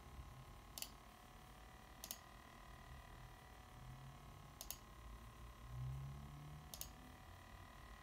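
MSI GS65 gaming laptop's cooling fans running very faintly and steadily: a soft hiss with a thin, steady whine. Four sharp clicks stand out over it.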